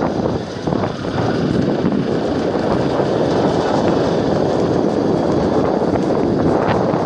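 Yamaha R15 single-cylinder motorcycle under way, its engine running under a steady rush of wind buffeting the microphone. The sound grows a little louder about a second in and then holds steady.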